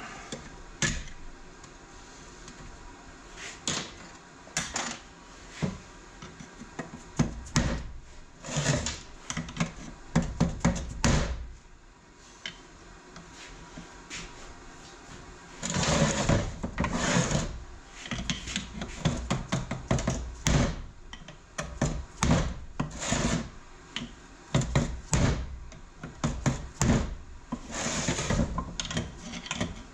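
Parts and tools being handled while stripping a TH350 automatic transmission: irregular knocks, clinks and scrapes of metal parts on the bench, with a few longer stretches of scraping and rattling and a quieter spell about halfway through.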